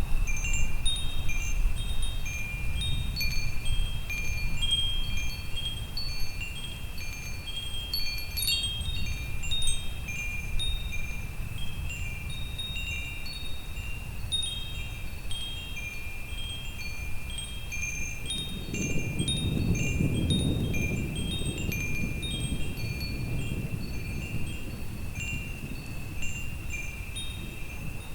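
Metal wind chimes ringing continuously, many short overlapping high notes, over a low steady rumble. About two-thirds of the way through a louder rolling rumble of distant thunder swells and fades.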